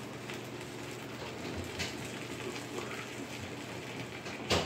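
Close-miked chewing of fried chicken: soft mouth sounds and faint crackles over a steady hiss, with one sharp click near the end.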